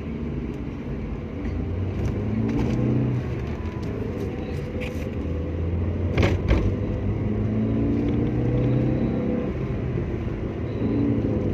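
Car driving: a steady engine and road rumble whose pitch rises and falls, with one sharp knock or bump about six seconds in.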